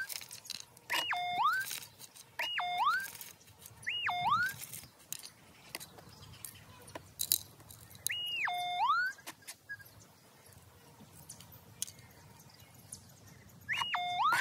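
Gold metal detector giving its target tone, a warbling electronic signal that dips in pitch and rises again, each under a second, about five times at uneven gaps, as a handful of dirt is passed over the coil: the sign of a metal target, a gold nugget, in the soil. Faint scraping of dirt between the signals.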